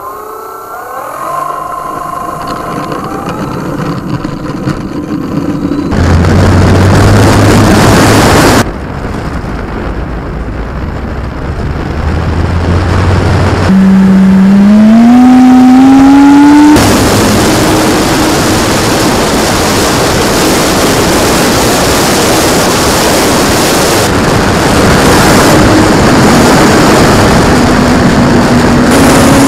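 Onboard sound of an electric RC model of a T-28 Trojan. Its motor spins up with a rising whine, and the motor and propeller climb in pitch on the takeoff run. In flight this gives way to a steady loud rush of propeller and wind noise on the wing-mounted camera.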